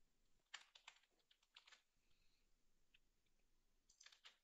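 Faint computer keyboard keystrokes and clicks, in a few small clusters of short sharp taps as Blender shortcut keys are pressed.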